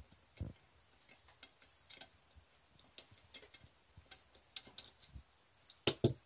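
Faint, irregular metallic clicks and taps from handling the Mercedes 722.6 transmission valve body, its metal plate, small screws and a screwdriver while the plate's screws are taken out, with a sharper cluster of clicks near the end.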